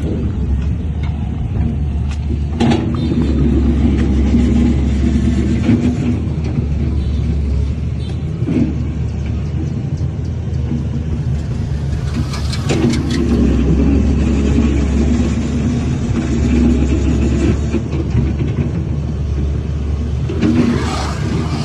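Heavy diesel earthmoving machinery running steadily, a deep engine rumble, with a few short sharp knocks along the way.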